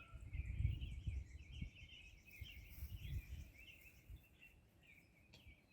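Small birds chirping and singing in quick, overlapping phrases, with a low rumble underneath for the first few seconds that fades out.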